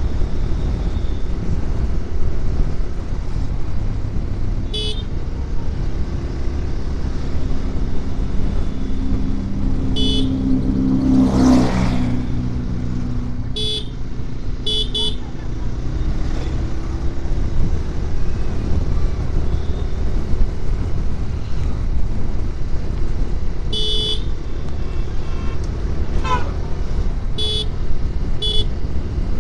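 Motorcycle riding along a road: a steady rumble of engine and wind. A horn gives short beeps about eight times, singly and in quick pairs. A loud whoosh of a passing vehicle comes about halfway through.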